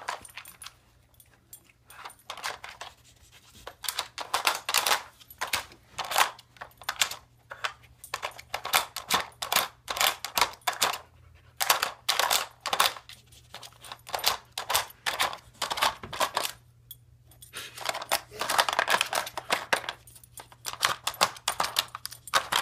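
A husky puppy paws and noses a plastic puzzle feeder, making its sliding blocks and cups clatter and clack in quick, irregular bursts. A longer run of rattling comes near the end.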